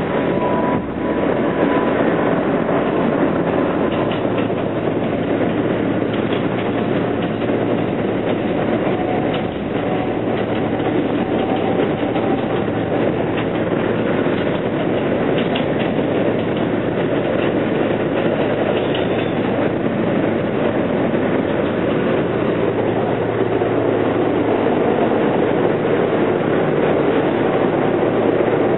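An R160B Siemens subway car running at speed, heard from inside the car: a steady rumble of steel wheels on rail with light clicks as the wheels cross rail joints.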